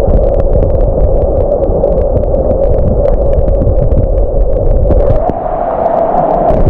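Muffled underwater sound of a GoPro held below the water's surface: a steady dull rushing and gurgling with a humming tone and faint scattered ticks. The sound turns abruptly dull at the start, as the camera goes under.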